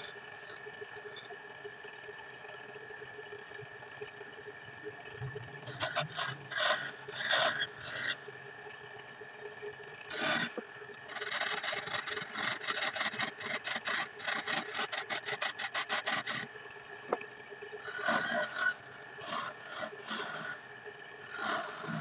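A wood lathe runs with a steady hum while a hand tool is worked against the spinning wooden lamp base, giving bouts of rasping scrapes. A run of rapid, repeated strokes in the middle lasts about five seconds.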